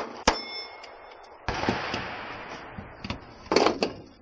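Two shots from a 9mm Glock pistol at the start, the second about a third of a second after the first. Steel target plates ring briefly after the hits. Then comes a rushing noise that fades over about a second and a half, and a short cluster of knocks near the end.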